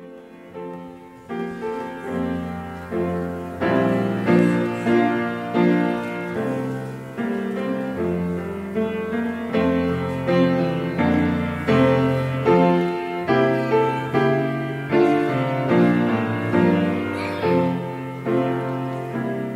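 Grand piano played solo: a slow piece of struck, ringing chords, starting softly and growing fuller over the first few seconds.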